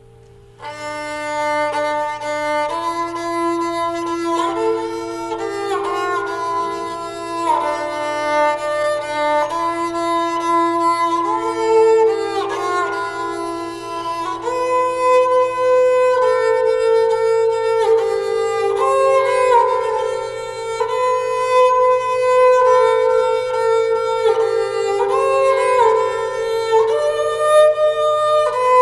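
Instrumental background music with long held notes and a sliding melody line, coming in suddenly about half a second in.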